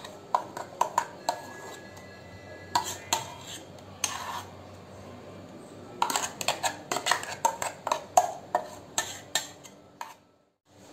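A metal spoon clinking and scraping against a steel bowl and plate while wet ground urad dal paste is scooped out onto flour, in irregular clusters of sharp taps. The sound cuts off abruptly shortly before the end.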